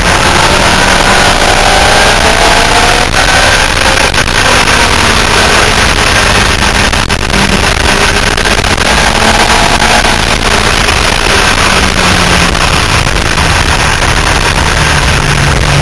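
Sport motorcycle on a racetrack, heard from on board: the engine runs at high revs, its pitch rising and falling through the corners, half buried under heavy wind noise on the camera microphone.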